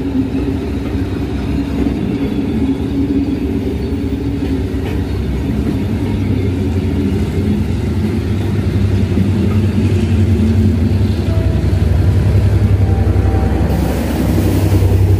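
Abu Qir line passenger train rolling past close by, its carriages making a steady rumble on the track that grows louder. Near the end the diesel locomotive passes with a deep engine drone.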